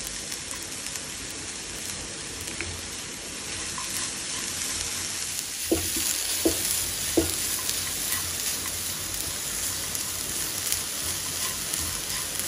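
Spatula stirring and scraping a sweet grated-coconut filling with nuts and raisins in a hot non-stick pan, over a steady sizzle. Three light knocks of the spatula about halfway through.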